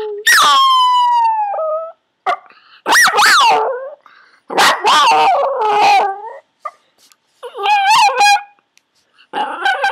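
Yorkshire terrier howling: about five drawn-out howls with short gaps, the first sliding down in pitch, the later ones rising and falling.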